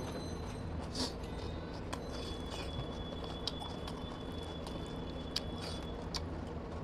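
Fingers squeezing and mixing rice with mutton curry on a plate: soft, scattered squishes and small clicks over a steady low background hum. A faint thin high tone runs through the middle.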